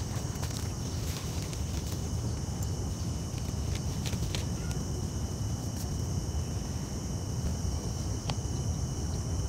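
Small canister gas stove burning steadily under a metal pot, a low steady roar, with a constant thin high-pitched whine over it. A few faint clicks, one as the pot is handled near the end.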